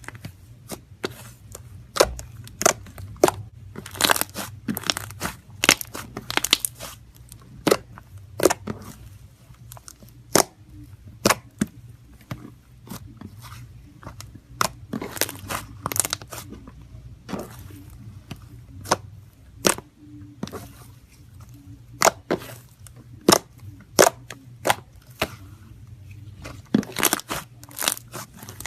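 Slime being squeezed and pressed by hand, giving irregular sharp clicks, pops and crackles, a few a second, over a faint low hum.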